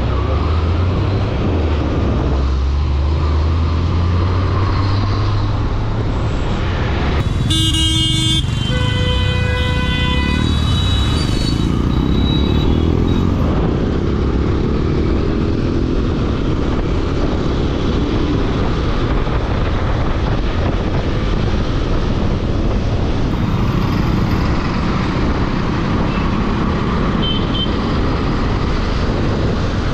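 Road traffic running steadily, with engines rumbling and tyre noise. A vehicle horn sounds for a few seconds about a quarter of the way in.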